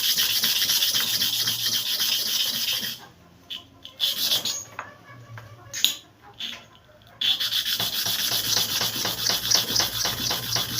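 Hair clipper blade being rubbed to and fro on a sharpening surface: a steady, gritty scraping that pauses for about four seconds in the middle, with a few small knocks in the gap, then starts again.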